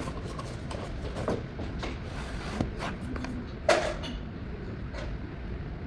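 Small box and packaging being handled: scattered soft clicks and light knocks, with one sharper knock just before four seconds in.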